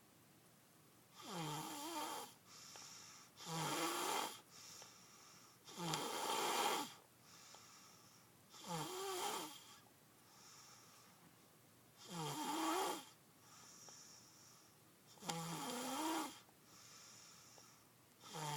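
Snoring in sleep: about seven loud snores, one every two to three seconds, each followed by a softer breath.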